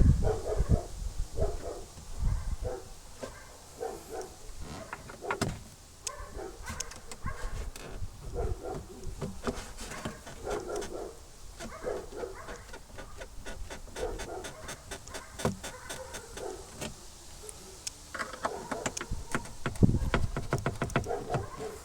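Body panels in a Lada Granta liftback's trunk squeaking over and over in short, irregular squeaks with scattered clicks. The squeak comes from two body parts on the left side rubbing where the factory sealant is missing.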